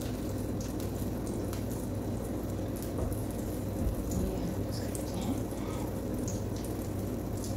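A flour-coated fish piece frying in hot mustard oil in a pan: a steady sizzle with scattered small pops.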